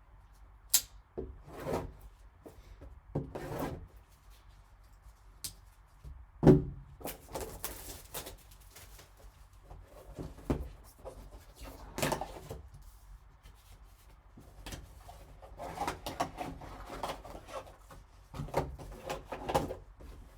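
A cardboard trading card box being opened and its contents handled: scattered scrapes, rubs and light taps of cardboard and plastic, with a sharper knock about six and a half seconds in.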